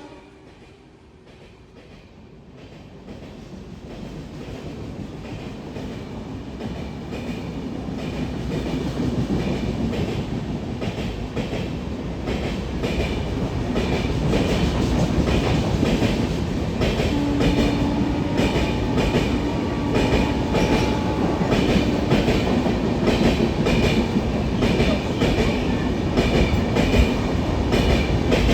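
Express passenger train hauled by a WAP-7 electric locomotive running through the station at speed. Its rumble builds over the first several seconds, then the coaches' wheels clatter rhythmically over the rail joints as they pass.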